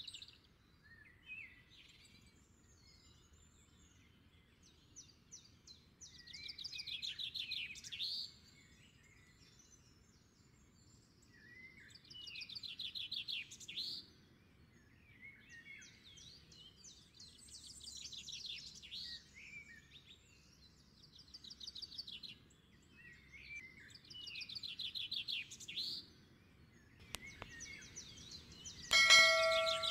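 Birdsong: phrases of rapid high trills and chirps about two seconds long, repeating every five or six seconds. Near the end a short bright chime sounds with a click.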